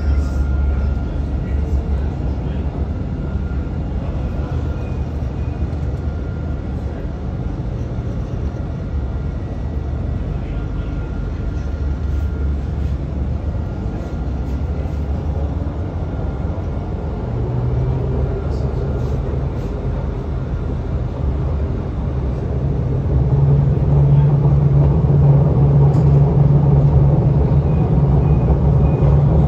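Dubai Tram running, heard from inside the car: a steady low rumble throughout. A low hum joins it about halfway through and grows louder near the end.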